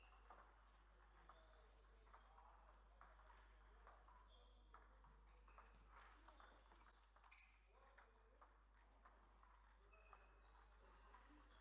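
Faint, irregular clicks of table tennis balls striking bats and tables, with a few brief high chirps and a steady low hum underneath.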